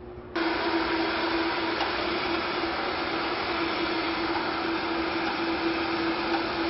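Countertop blender switched on about half a second in, its motor running at a steady speed with a constant hum as it purées lobster soup.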